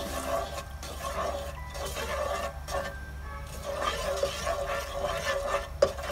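Wooden spoon stirring melted sugar and oil around a nonstick pan: a continuous liquid swishing and scraping, with one sharp knock of the spoon against the pan near the end. The sugar has fully melted and is beginning to turn to caramel.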